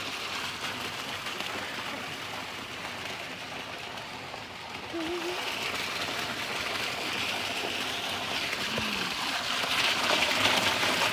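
Water pouring from a pool's cascade outlet into the pool, a steady splashing rush that grows louder toward the end.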